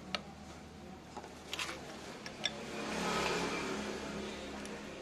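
A few light metal clicks as a stove's brass gas jet is threaded onto the burner pipe by hand and an adjustable wrench is fitted onto it, over a steady low hum. A broad rushing noise swells and fades around the middle.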